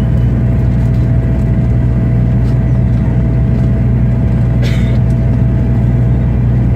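Airliner cabin noise in flight: a steady, loud low rumble of engines and air with a thin steady whine above it. A brief short hiss comes about two-thirds of the way through.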